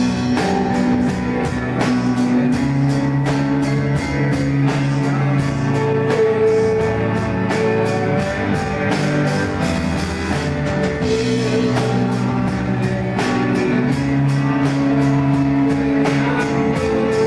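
Rock music with guitar and a drum kit, sustained notes over a steady beat.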